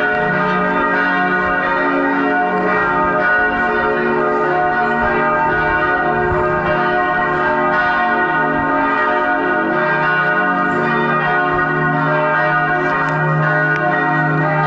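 Bells of a Lutheran church in Jerusalem ringing in a continuous peal, several bells sounding together so that their long, overlapping tones merge into a steady wash of ringing.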